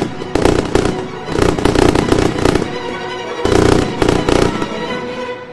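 Fireworks bursting and crackling in several loud spells over music, tailing off near the end.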